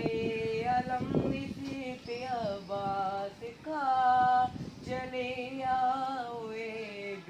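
A high voice singing a noha, an Urdu lament, in long held notes that waver and glide in pitch, with a short break about halfway through.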